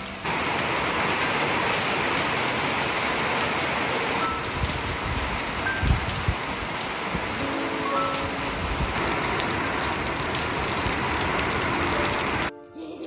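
Heavy rain falling steadily on roof tiles and paving, as an even hiss that starts abruptly just after the beginning and cuts off shortly before the end. Faint background music notes sound over it.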